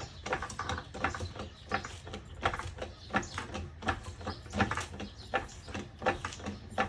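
Car jack being pumped to lift the car: a steady run of clicks and creaks, about two or three a second.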